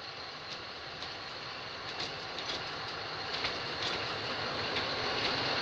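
D10H diesel locomotive with a Caterpillar engine running as it rolls past at low speed, growing steadily louder as it approaches. Its wheels give a series of sharp clicks as they cross rail joints.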